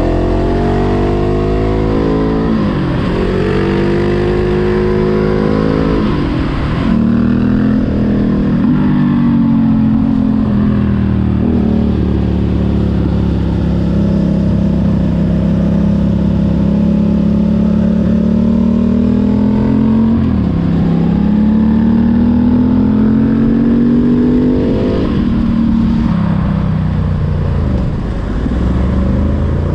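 Motorcycle engine under way, its pitch climbing and then dropping sharply at each of several gear changes. Through the middle it eases off in a long dip and pulls back up. Wind rush runs underneath.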